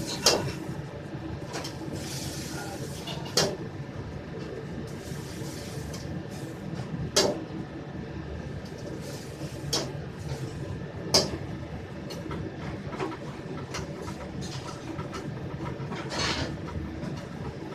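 Commercial gas wok burners and kitchen extraction running with a steady low noise. About six sharp metal clanks of a ladle striking a steel wok rise above it, a few seconds apart.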